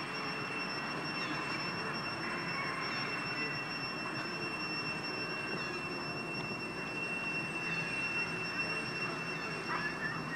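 A steady outdoor background noise with a continuous high-pitched whine held at one pitch, and a few faint clicks near the end.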